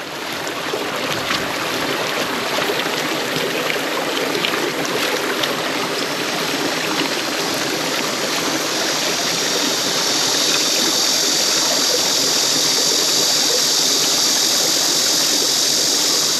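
Mountain stream water rushing and trickling over rocks, a steady noisy flow. About halfway through, a brighter hiss rises and holds.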